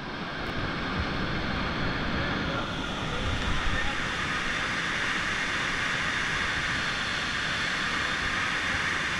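Steady rushing of a large whitewater river rapid heard from the bank, fading in over the first second and then holding even.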